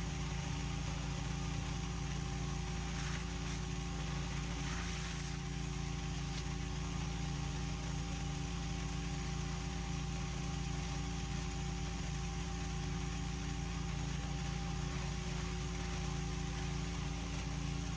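Petrol pressure washer engine running steadily. Brief bursts of hiss come about three and five seconds in.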